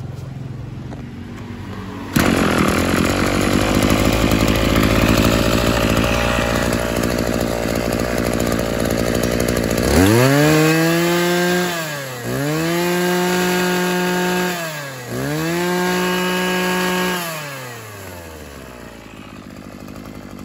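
Maruyama JC261DX 26cc two-stroke brush cutter engine running, held at high throttle for several seconds. It is then revved three times, its pitch dropping briefly between revs, before falling back to idle near the end. The engine sounds punchy and strong.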